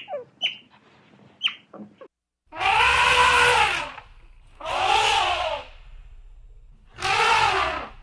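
A few short, sharp chirps, then, after a brief break, an animal giving three loud, harsh, drawn-out calls about two seconds apart, each rising and then falling in pitch.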